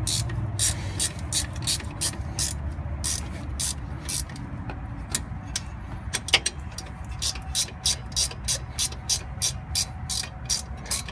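Ratcheting wrench clicking in a steady rhythm, about three clicks a second, as the hub assembly bolts are run in.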